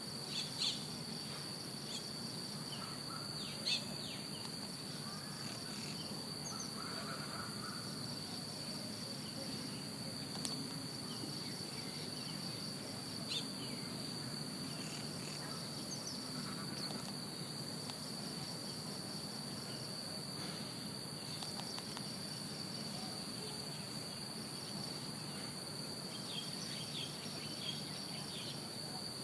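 Steady high-pitched insect chorus, a continuous unbroken trill, with a few brief chirps and ticks scattered through it.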